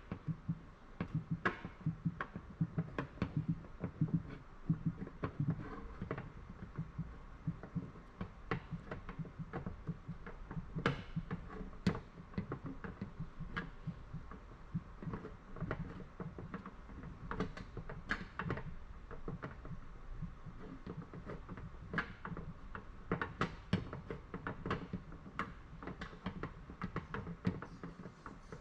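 Paintless dent repair tools working a car door panel: light, irregular metal taps and clicks, a few a second, as the dent and body line are worked out.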